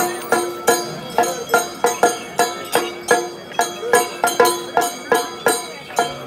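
Music with a steady beat of ringing percussive strikes, about two and a half a second, over a held tone.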